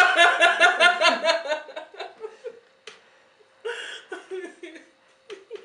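Two women laughing. A loud, rapid run of ha-ha pulses over the first two seconds trails off into softer, scattered chuckles.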